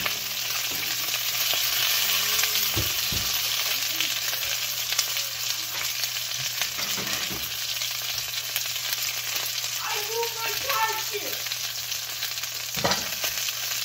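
Fried chicken pieces and garlic sizzling steadily in oil in a nonstick frying pan as steamed broccoli florets are tipped in, with a few light knocks about three seconds in and near the end.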